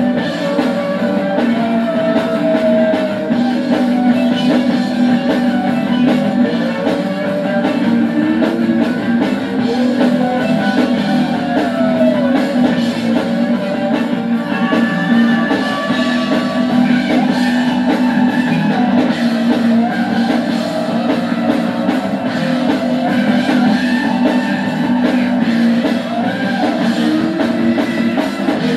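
Rock band rehearsal recording: loud, steady guitar-driven rock music with a voice singing over it.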